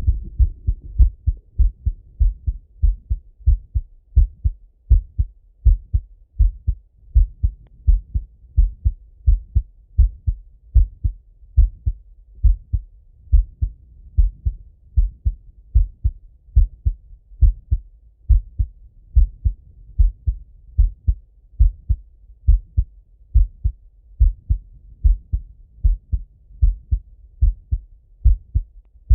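A man's heartbeat heard through a stethoscope on the chest: a steady, even run of low lub-dub thumps.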